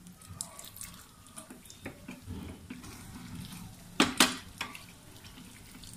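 Light clinks and scrapes of a spoon against steel kitchenware as broken cashew pieces are put into a small pan of ghee, with two sharp clicks about four seconds in.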